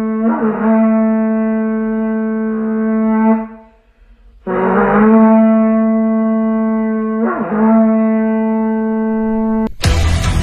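Two long, steady horn blasts, each held for several seconds on one pitch with a short break between them. Near the end, loud full-band music cuts in abruptly.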